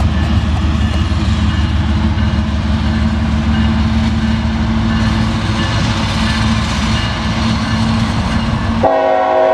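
CSX diesel freight locomotives passing close by, their engines running with a loud, steady low drone. Near the end the lead locomotive's air horn starts sounding a steady multi-note chord.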